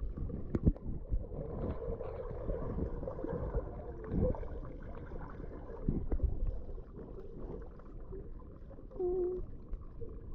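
Muffled underwater sound through a submerged GoPro Hero 8 Black: low rumbling and gurgling of pool water with scattered knocks. A short muffled hum comes about nine seconds in.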